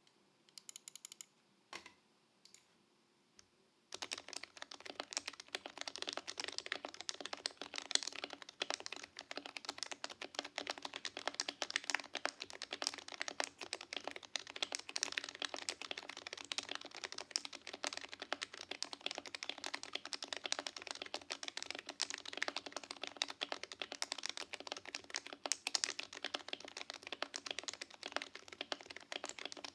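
Typing on a Noxary Evija custom Topre keyboard with a brass bottom and a top-mounted stainless steel plate, its lubed Realforce housings fitted with silencing rings. A few separate key presses come first, then fast continuous typing starts about four seconds in.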